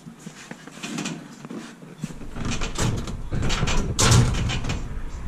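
Wooden cradle frame knocking, rattling and scraping against a steel boat trailer as it is shifted by hand, with pins just pulled to free it for hoisting. A cluster of knocks and rattles in the second half, over a low rumble.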